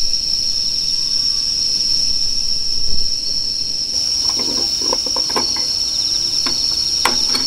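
Insects trilling steadily at a high pitch. From about four seconds in, a run of small clicks and knocks as a hand handles a Dietz hurricane oil lantern, with a sharper click near the end.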